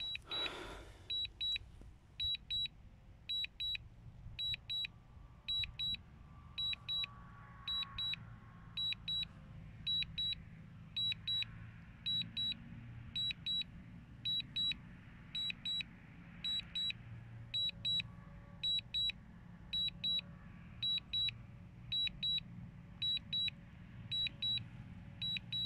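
Drone remote controller beeping its Return-to-Home warning: short, high double beeps repeating about once a second, the alert that sounds while a DJI Mini 2 is flying itself home.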